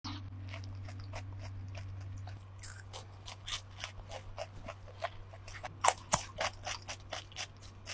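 Close-up eating sounds of crisp food, fried breaded seafood-cheese balls and fresh cucumber: many short irregular crunches and chewing clicks, the loudest around six seconds in, over a steady low hum.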